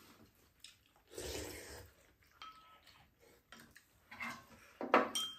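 Quiet mealtime eating sounds: chewing and slurping, with a few light clicks of a spoon and chopsticks against ceramic bowls. There is a longer noisy slurp or breath about a second in and a sharper, louder sound near the end.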